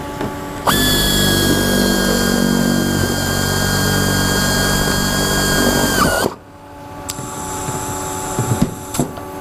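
Pneumatic air drill running at a steady high whine for about five and a half seconds, then stopping, as it bores through a pilot hole in the aluminium wing skin into the spar beneath. Two light clicks follow near the end.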